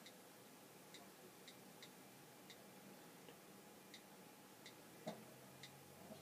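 Faint clicks of an iPad's on-screen keyboard as a password is typed: short, irregular ticks, roughly one every half second. There is a soft thump about five seconds in.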